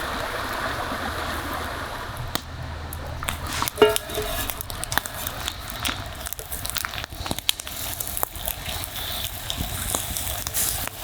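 River water flowing steadily, with scattered clicks and knocks of handled gear and a short sharp squeak and knock about four seconds in.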